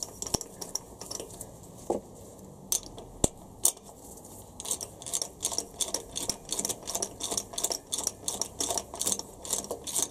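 Ratchet wrench with a 22 mm deep socket clicking as it winds a coolant pipe fitting into the engine's cylinder head. A few scattered clicks come first, then quick, regular ratcheting at about four clicks a second; the fitting is still running down its threads, not yet tight.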